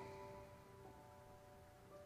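Soft, slow piano music: a few held notes ring on, with a new note entering a little under a second in and another near the end.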